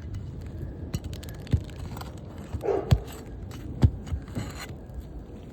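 Sharp metal knocks and a short scrape as nails are worked loose from asphalt roof shingles, the two loudest knocks about three and four seconds in.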